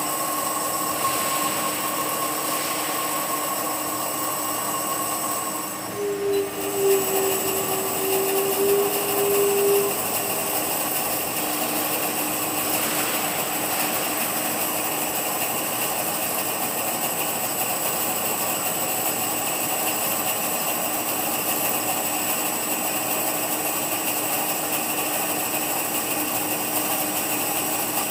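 CNC groove-cutting machine with electric-motor cutting heads running on a creper/shredder roller: a steady machine hum and whine with several constant tones. About six seconds in, a louder tone comes in and lasts about four seconds, then the machine settles back to its steady sound.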